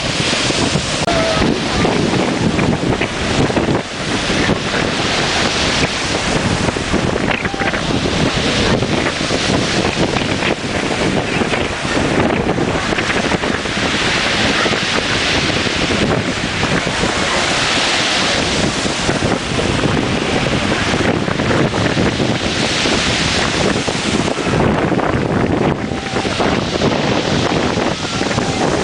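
Strong wind blowing hard across the microphone, with a dense rushing noise that swells every few seconds, mixed with the wash of sea surf.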